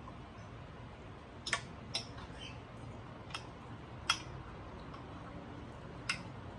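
Metal fork clicking and scraping against a ceramic plate while food is scooped up: five sharp clinks, the loudest about four seconds in.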